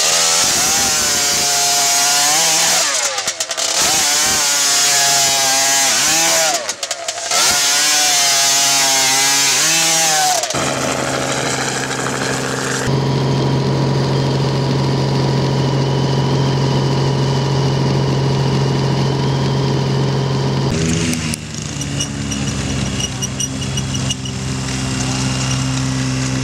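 A small engine revving up and down over and over, cutting out briefly twice, then settling into a steady drone of constant pitch.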